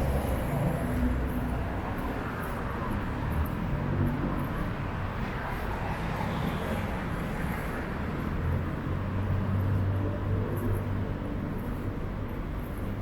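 Busy city street traffic: cars and other vehicles running past, with a low engine hum that comes up more strongly in the second half.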